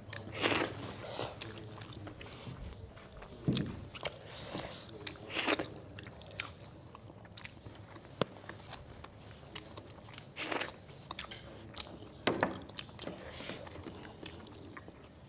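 Chewing and biting while eating chicken, with short wet mouth clicks and smacks every second or two.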